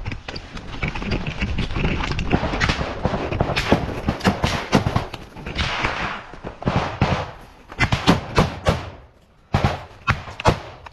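Close rifle fire in a forest firefight: irregular sharp shots and short bursts over the crunch and rustle of dry branches and leaf litter. The firing thins to a brief lull a little before nine and a half seconds in, then several sharp, loud shots follow.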